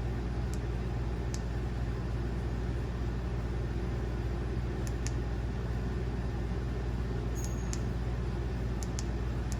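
A steady low mechanical hum, with a few faint light clicks scattered through it, some in quick pairs.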